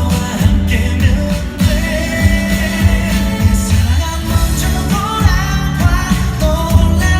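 Pop song with a sung vocal over a steady bass line.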